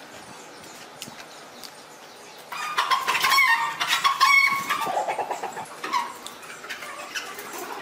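Chicken clucking loudly, starting about two and a half seconds in, with a run of calls that tapers off over the next few seconds.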